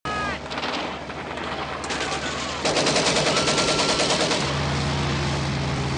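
Scattered gunshots, then a rapid burst of machine-gun fire a little before midway. Near the end it gives way to the steady drone of a propeller aircraft's engines.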